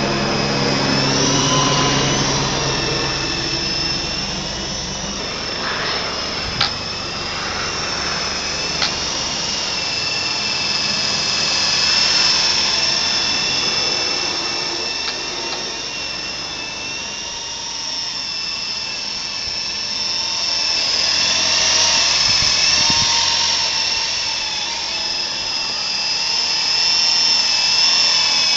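Flying Gadgets T43 coaxial RC helicopter in flight: a high motor and gear whine whose pitch wavers up and down as the throttle changes, swelling louder several times as it comes closer. It is loudest near the end.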